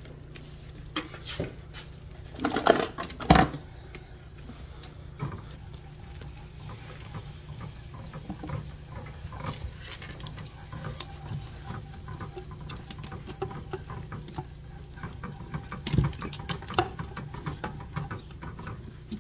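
Butter melting and sizzling in a nonstick frying pan on a gas burner, a steady fine crackle as a silicone whisk stirs it. A few loud knocks come about three seconds in, and another near the end.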